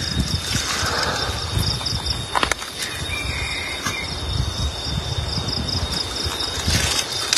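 Insects trilling, with a steady high whine and rapid pulsing chirps above it, over an uneven low rumble. A few sharp clicks break in.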